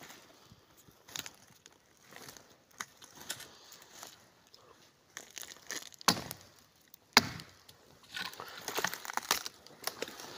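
Dry twigs and branches snapping and cracking in woodland. Two sharp woody knocks come about six and seven seconds in, followed by a burst of crackling.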